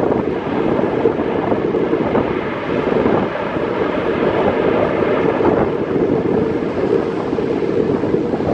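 Boeing 777-300ER's GE90 jet engines giving a steady, loud low rumble as the airliner rolls out along the runway after touchdown, with wind buffeting the microphone.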